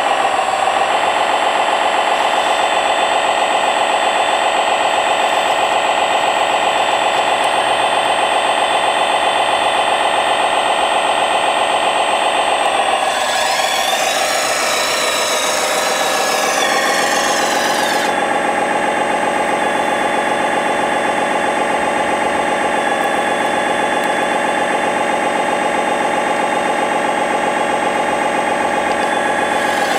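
A 1/14-scale radio-controlled construction machine running, giving a steady engine-like hum with many overtones. Between about 13 and 18 seconds in, a harsher, higher sound joins, its pitch rising and falling as the machine works, then it settles back to the steady hum.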